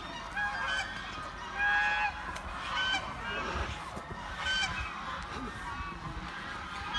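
A flock of domestic geese honking, many short overlapping calls from several birds at once.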